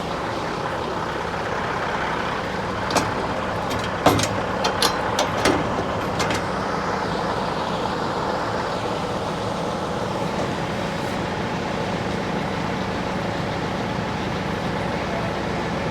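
Diesel engine of farm machinery running steadily at a constant speed, with a short run of sharp clicks about three to six seconds in.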